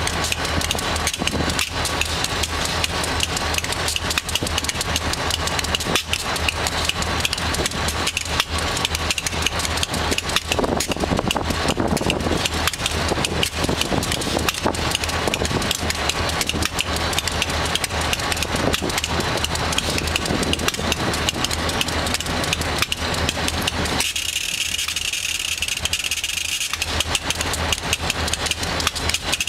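Diesel-electric freight locomotive idling close by: a loud, steady engine rumble with constant rattling. Near the end the low rumble drops away for about three seconds while the higher hiss goes on.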